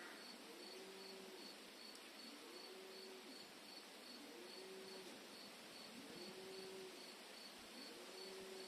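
Faint, steady cricket chirping, a high note pulsing about four times a second. Under it, a low call that rises, holds and falls repeats about every second and a half.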